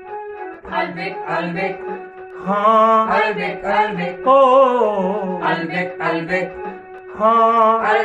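Background song: a singer holds long, wavering notes over sustained keyboard chords.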